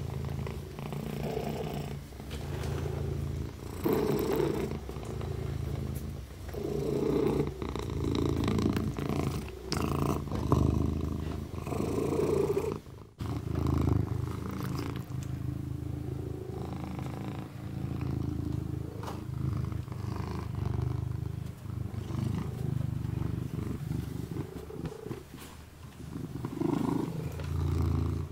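Kitten purring steadily, with soft licking sounds as it washes its paw; the sound drops out briefly about halfway.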